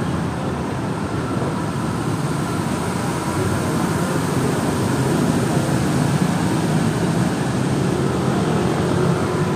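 Busy intersection traffic: many motorbike, car and bus engines running together as a steady mixed din. It swells a few seconds in as a city bus passes close by.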